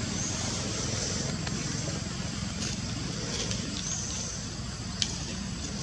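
Outdoor background noise: a steady low rumble, a high buzzing that swells up a few times, and one sharp click about five seconds in.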